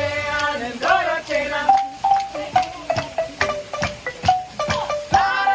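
Marimba band playing live: quick mallet-struck notes that ring briefly. Voices sing over it at the start and again near the end.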